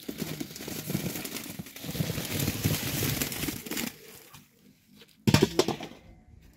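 Red onions poured from a basin tumbling into a jute sack held open in a steel sack-filling frame: a dense rattle of small knocks and rustling sacking for about four seconds, then dying away. A brief louder sound comes about five seconds in.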